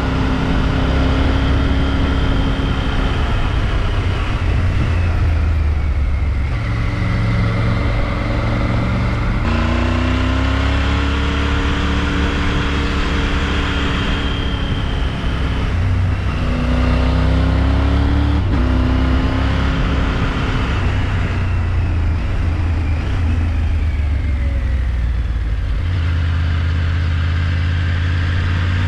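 Adventure motorcycle engine running under way, its pitch changing several times as the rider works the throttle and gears, over a steady rush of noise.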